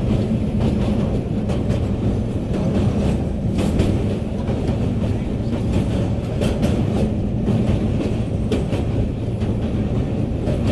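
Moving train heard from on board: a steady low rumble of wheels on the track, with irregular sharp clicks every second or two.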